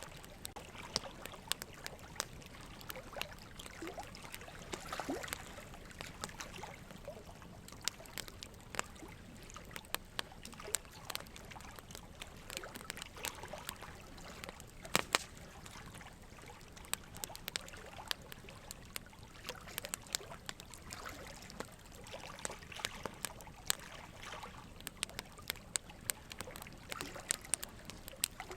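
Quiet ambient sound bed: a soft steady hiss with many irregular small crackles and clicks scattered through it, a little louder about halfway.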